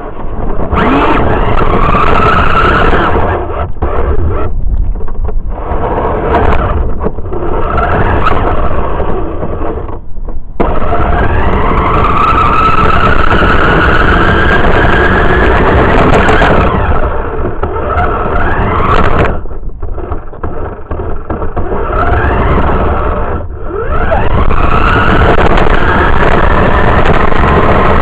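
A radio-controlled car's motor and drivetrain, heard close up from a camera riding on the car, whining and rising in pitch with each burst of throttle over a loud rumble and rattle of the wheels on rough pavement. The throttle eases off briefly several times.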